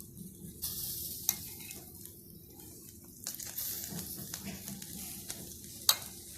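Marinated chicken pieces sizzling in olive oil as they grill. The sizzle swells twice, with a sharp click just over a second in and a louder one near the end.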